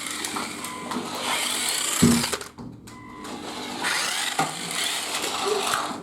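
Toy RC car's small electric motor whirring as it drives. The whirring drops out briefly about two and a half seconds in, then picks up again.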